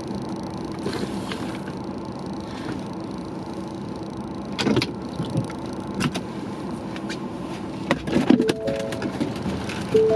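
Steady road and engine hum inside a moving car's cabin, broken by a few sharp clicks and knocks. Near the end come short electronic chime tones of a few notes.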